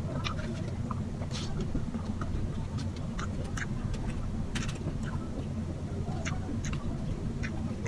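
Close-up eating sounds: a person chewing with wet, irregular smacking clicks of the lips and mouth, over a steady low hum.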